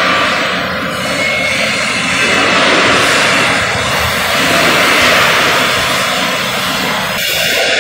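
Steady, loud roar of industrial shop noise in a large steel fabrication shop, swelling and easing slightly. Music comes in near the end.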